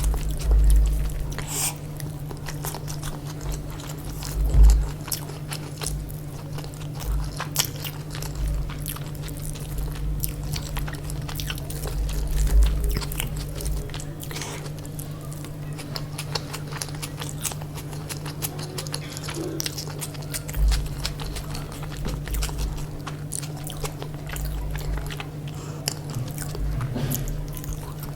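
Close-miked chewing and biting of chicken biryani, with irregular crunches, wet mouth clicks and low thumps over a steady low hum.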